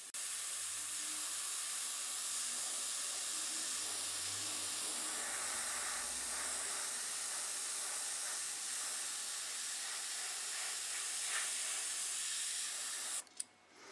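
Airbrush spraying paint: a steady, high hiss of air and atomised paint that cuts off suddenly near the end.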